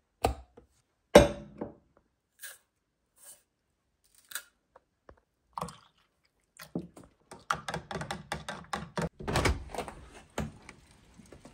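Clicks and knocks from handling an electric kettle and a steel travel mug in a kitchen. There is a loud thunk with a short ring about a second in and a few light ticks, then a busy run of knocking and clinking from about seven seconds until shortly before the end.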